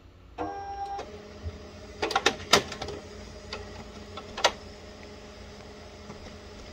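Canon MF269DW laser printer starting up after a factory reset: a brief tone, then its mechanism runs with a steady hum and several sharp clicks and knocks as it initializes.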